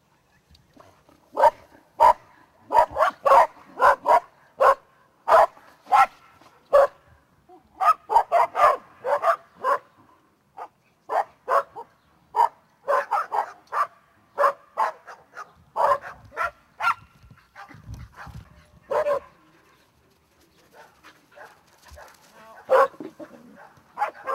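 Puppies yapping and barking in quick runs of short, sharp yaps, with a few brief pauses between bursts.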